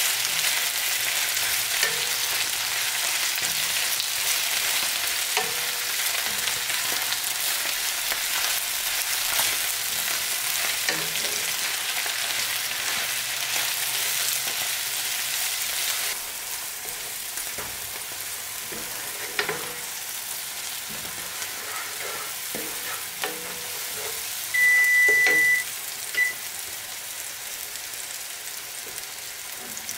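Spinach and garlic sizzling in a nonstick frying pan, stirred with a wooden spoon. About halfway the sizzle drops off sharply, leaving light spoon scrapes and taps, and near the end a steady high beep lasting about a second, the loudest sound, followed by a short blip.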